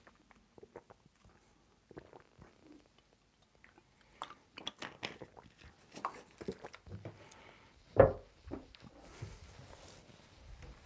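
Gulping from a plastic water bottle, then the bottle handled with a run of plastic clicks and crackles, and a single loud thump about eight seconds in.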